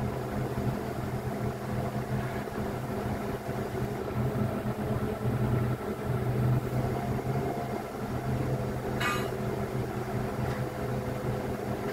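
Crane machinery running with a steady hum, with one brief sharp sound about nine seconds in.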